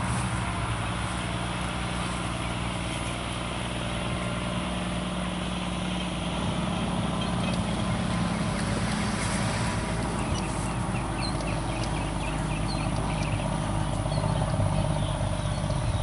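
A steady low mechanical hum, like a motor or engine running, with faint quick chirps from about ten seconds in.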